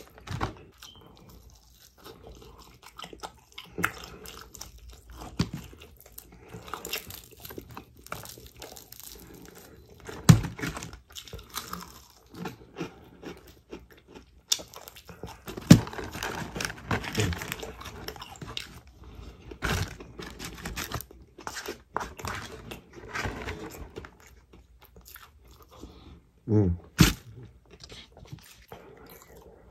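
Close-miked chewing and crunching of fried chicken, with irregular crisp crunches of the fried crust and a few sharper, louder bites.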